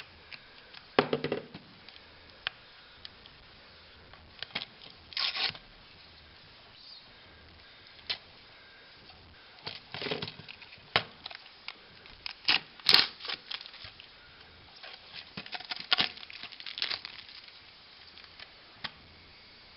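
Wrapping on a Blu-ray box set being torn and crinkled open, in short irregular bursts of tearing and crackling with sharp clicks between quiet gaps.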